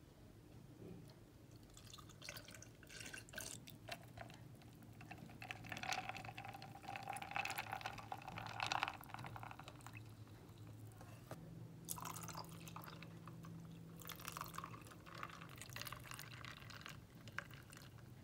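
Faint pouring and splashing of liquid into a plastic cup over ice cubes: milk poured from a carton, then coffee poured in from a glass, in two separate pours.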